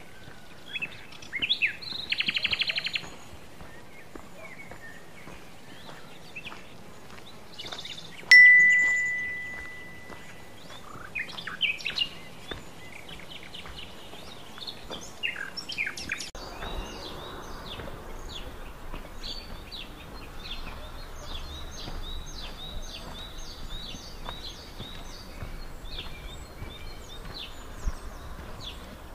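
Forest songbirds singing, with a rapid trill near the start and a string of repeated high notes in the second half. About eight seconds in, a single sharp metallic ding rings out and fades over a couple of seconds.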